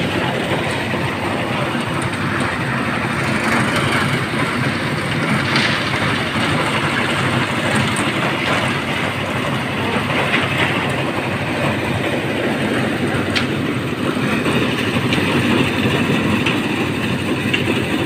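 Concrete-mixing machinery and the ladder-lift hoist running steadily during a slab pour, with a couple of sharp clanks along the way.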